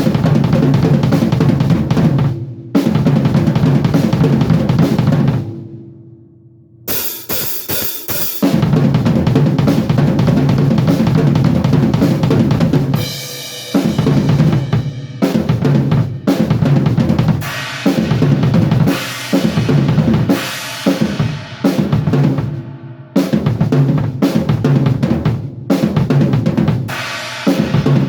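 Acoustic drum kit played in fast, dense fills of bass drum, snare and toms with cymbal and hi-hat hits: warm-up crossover patterns in groups of four and three. The runs stop briefly between phrases, with a longer break about six seconds in.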